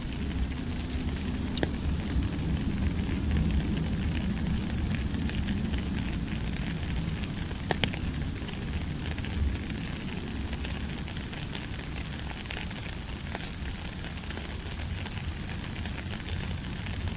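Steady rain falling: a dense, even hiss with a few sharp drop ticks scattered through it and a low rumble underneath.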